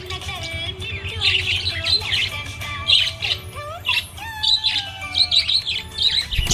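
Budgerigar chirping in quick bursts of high, twittering notes, over background music.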